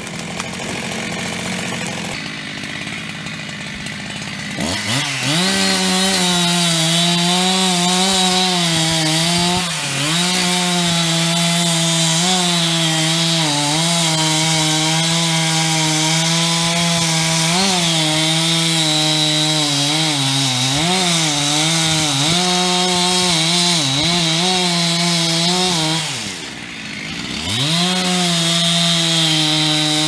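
Two-stroke chainsaw revving up about five seconds in and running at full throttle, its pitch dipping now and then under load as it cuts. Near the end it drops toward idle for a moment, then revs up again.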